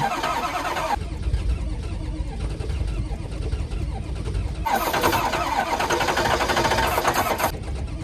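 Ford Power Stroke diesel engine being cranked over in freezing cold with starting fluid, turning over without catching. An aerosol can of starting fluid hisses at the start, sprayed into the intake.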